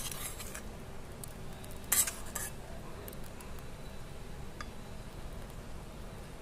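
A steel spoon stirring a thickening chutney as it simmers in a stainless steel pan, with a few clinks and scrapes of the spoon on the metal, the loudest about two seconds in.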